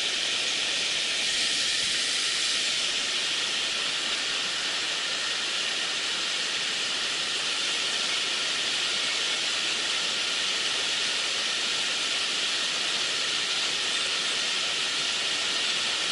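Mountain stream rushing over rocks: a steady, even hiss of running water.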